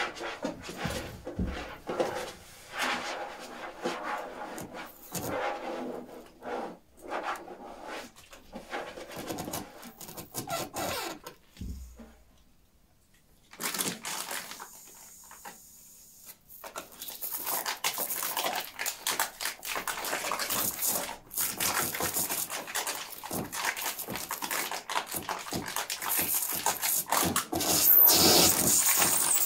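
Sparse free-improvised experimental music of scraping, rustling and clicking sounds. It drops to near silence for a moment about halfway through, then a denser hissing texture builds and grows louder near the end.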